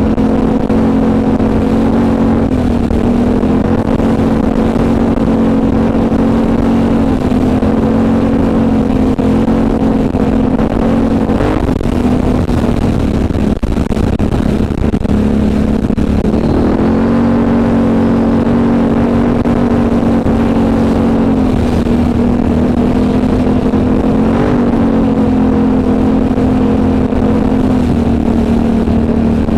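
ATV engine running at a steady, nearly constant speed under way, with small shifts in revs. Past the middle it eases off for a few seconds, then picks back up with a short rise in pitch and holds steady again.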